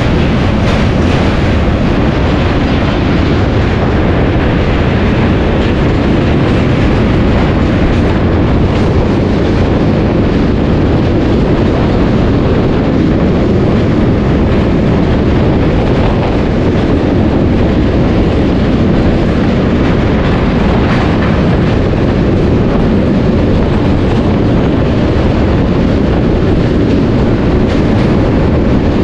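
Passenger express train running across a steel truss rail bridge, heard from the open door of a moving coach: a loud, steady rumble of wheels on the rails with faint irregular clacks.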